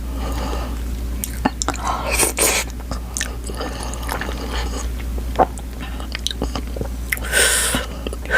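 Close-miked chewing and biting of a mouthful of food, with wet mouth clicks scattered throughout. Two short breathy bursts come about two seconds in and near the end.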